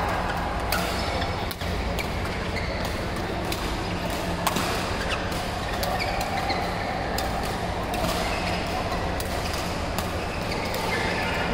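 Badminton rackets hitting shuttlecocks: sharp, irregularly spaced cracks from this and neighbouring courts, heard over the steady din of a large sports hall.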